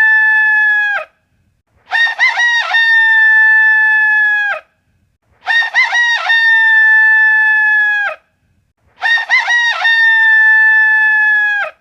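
Rooster crowing cock-a-doodle-doo, loud: the end of one crow, then three identical crows about three and a half seconds apart. Each opens with a few quick rising-and-falling notes and ends in one long held note that drops off sharply.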